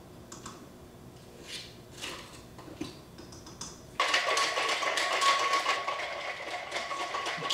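A plastic scoop tips powder into a stainless shaker bottle with a few faint taps and scrapes. About four seconds in, the capped bottle is shaken hard, a loud continuous rattling swish of drink inside it.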